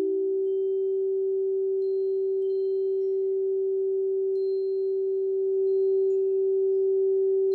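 Crystal singing bowl ringing one long, steady, pure tone, with a second, lower bowl tone fading out at the start. Faint high tones come and go above it.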